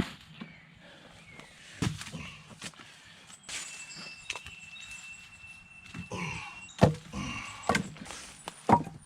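Irregular wooden thuds and knocks of cut tree limbs being handled and set down. The loudest strikes come about two seconds in and again several times near the end. The chainsaw is not running.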